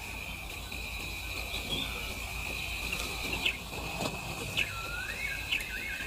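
Night bush ambience: a steady high insect trill, with scattered short chirps and a brief swooping whistled call about five seconds in.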